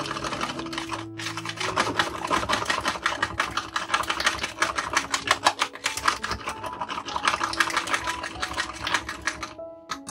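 Small wire whisk beating a raw egg in a plastic container: fast, dense clicking and scraping of the wires against the plastic, stopping shortly before the end. Soft background music plays underneath.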